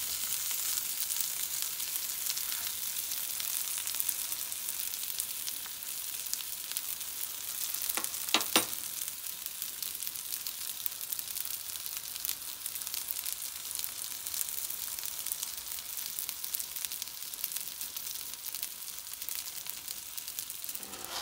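Pork breakfast sausage links sizzling in fat in a nonstick frying pan: a steady crackling hiss with fine spitting pops. Two sharp clicks about eight seconds in are the loudest moment.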